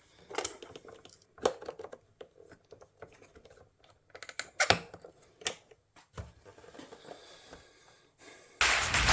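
Scattered light clicks and knocks of small hard objects being handled, a few at a time with quiet gaps between. Near the end a loud whoosh sets in.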